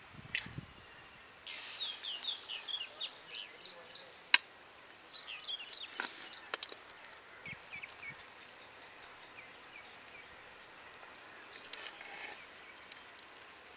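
Small birds chirping in two quick runs of high notes, then fainter chirps, with a few sharp clicks; the loudest click comes about four seconds in.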